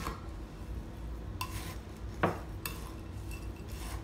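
Metal spoon stirring moist stuffing mix in a glass mixing bowl, scraping through the crumbs and clinking against the glass a few times, loudest a little over two seconds in.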